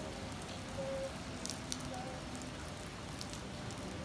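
Steady rain falling on wet pavement and puddles, with scattered sharp drop ticks standing out from the even hiss.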